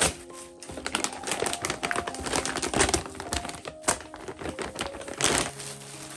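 Plastic packaging being handled and opened: irregular crinkling and clicking rustles, with a louder rip or scrape about five seconds in.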